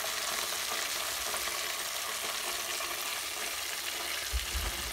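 Chicken deep-frying in hot oil in a pot: a steady sizzle and crackle of bubbling oil. A few low thuds come near the end.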